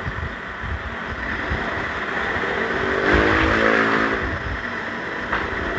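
A passing motor vehicle's engine swells and fades about three to four and a half seconds in, over steady background noise, with a small click near the end.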